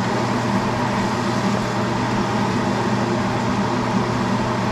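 Onion frying in a pan, a steady sizzle over a constant low mechanical hum.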